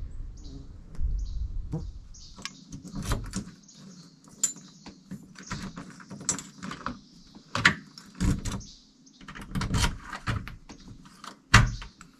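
Door handle and lock of a newly installed exterior lockset being worked and tried: a run of irregular metallic clicks, rattles and knocks, after a low rumble in the first couple of seconds.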